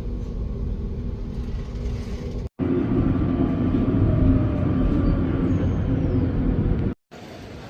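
Steady vehicle engine and road rumble with a low steady hum, cut into separate stretches by two brief dropouts, about two and a half seconds in and near the end; the middle stretch is louder.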